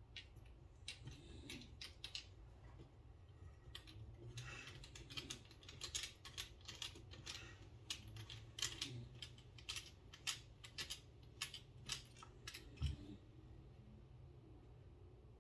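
Faint, irregular light clicks and ticks of a small Torx driver and bit working the screws of a Benchmade Bugout pocket knife as it is taken apart, with parts being handled on the bench. The clicking is busiest in the middle and stops a couple of seconds before the end.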